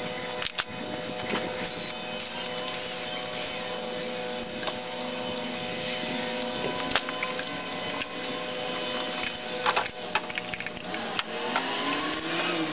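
Cordless drill-driver motor running with a steady whine for several seconds, spinning out bolts on the top of the engine. Sharp clicks and light metal knocks of tools and parts come through it, and near the end a whine rises in pitch.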